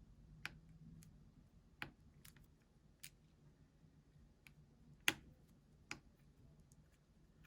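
Scattered small, sharp clicks and taps of tools and parts on an iPhone 7 Plus being reassembled, about six in all, the loudest about five seconds in.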